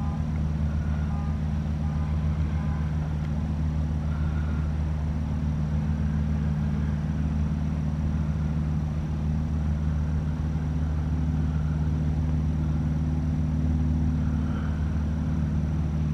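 An engine droning steadily at one unchanging speed, a deep, even hum.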